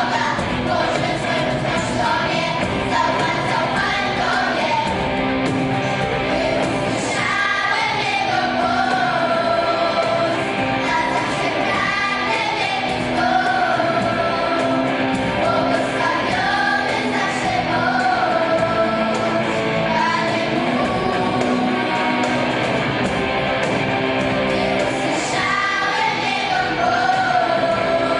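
Children's choir singing in unison, accompanied by a small band of keyboard, acoustic guitar and cajón.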